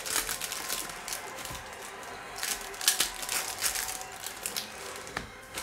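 Foil trading-card pack wrapper crinkling and rustling as hands open it and handle the cards, in uneven bursts near the start and again around three seconds in.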